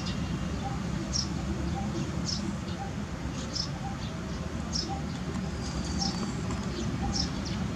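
A bird chirping: short high chirps repeating evenly, about one a second, over a steady low background rumble.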